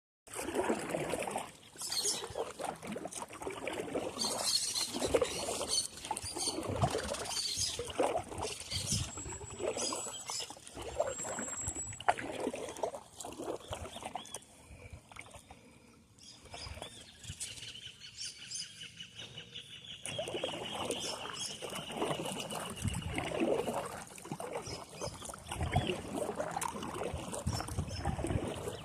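Outdoor nature sounds: birds calling, with high chirps early on and a high pulsing trill for several seconds around the middle. Underneath are irregular knocks and water swishes, typical of a small fishing boat on the water.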